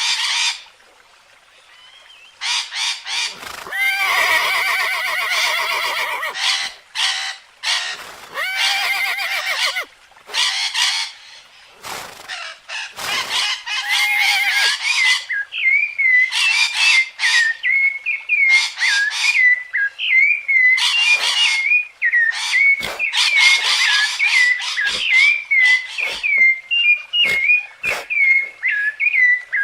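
A string of different animal calls: a few drawn-out calls in the first half, then many short chirps repeated quickly through the second half.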